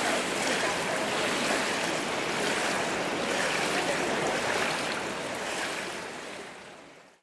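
Steady splashing and churning of pool water from a swimmer doing breaststroke kicks on her back in an indoor pool; the sound fades out near the end.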